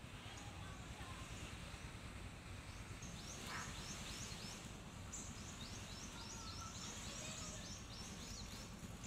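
A bird chirping a quick string of short high notes, starting about three seconds in, over a steady low rumble of wind and surf.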